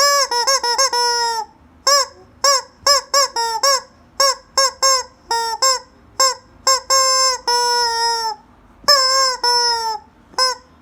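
Rubber chicken squeeze toy squawking, squeezed over and over: a quick run of short honks, then single squeezes about twice a second, with a few longer held squawks of about a second each near the end.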